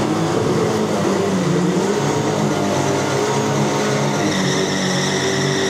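Isuzu D-Max turbo-diesel drag truck doing a burnout: the engine is held at high revs while the rear tyres spin and smoke. A high, steady whine joins in about four seconds in.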